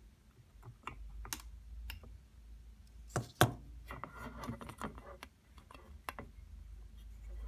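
Light clicks and knocks of an LED circuit board and soldering iron being handled and moved about on a work mat, with a louder double knock about three seconds in followed by a second of rustling.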